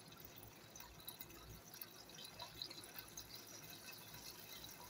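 Faint sizzling of meat frying under the glass lid of an electric skillet, with scattered small pops and ticks.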